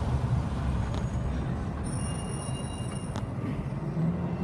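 Car in slow city traffic, heard from inside the cabin: a steady low rumble of engine and tyres. About two seconds in, a faint high tone sounds for about a second and ends with a click.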